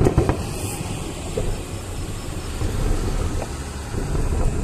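Fireworks finale: a sharp bang at the start, then a continuous low rumble of shell bursts.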